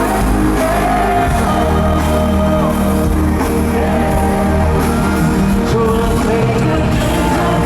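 Live pop band playing with a male lead vocal singing over sustained bass.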